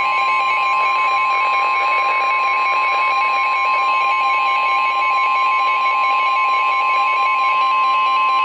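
NOAA Weather Radio 1050 Hz alert tone: a steady, loud single tone that signals a weather warning broadcast about to follow. A higher, rapidly alternating beep pattern runs alongside it.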